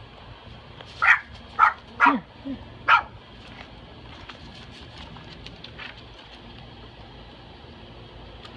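A dog barking: four loud, sharp barks and one softer one, in quick succession starting about a second in.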